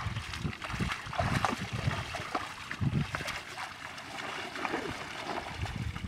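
Mud and water sloshing and squelching as a pair of bullocks drag a wooden ladder leveller through a flooded paddy field, with irregular heavy steps in the mud.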